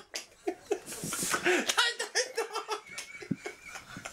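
Men laughing hard in a small bathroom: bursts of giggling and belly laughter, loudest about a second in.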